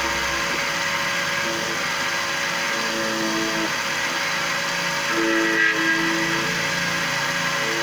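Key cutting machine running, its cutter milling a clamped key blank with a steady, continuous noise.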